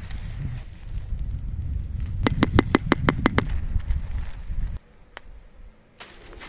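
Low rumbling handling noise as a cord is tied off and a tarp is worked by hand, with a quick run of about eight sharp clicks in the middle. It cuts off suddenly, and near the end footsteps crunch through dry fallen leaves.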